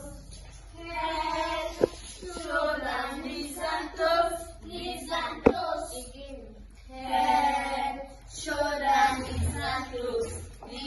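A group of young children singing an action song together, in short phrases with brief pauses between them. There are a couple of sharp knocks, about two seconds in and again midway.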